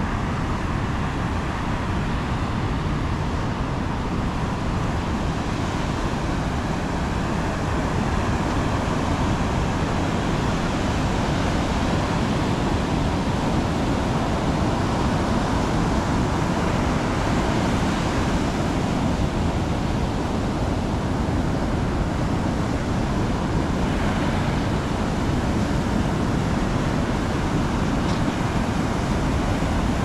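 Steady outdoor beach ambience: surf and wind, with road traffic mixed in.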